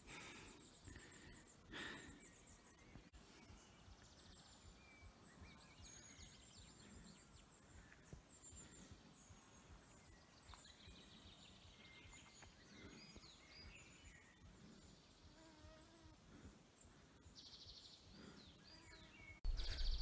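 Near silence, with faint scattered bird calls: short high chirps and trills. There is one soft thump about two seconds in.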